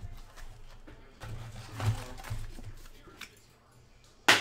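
Cardboard trading-card box and foil card packs handled on a table: soft rustles and small taps, with a faint low voice murmuring about a second and a half in. Near the end comes one sharp, loud knock.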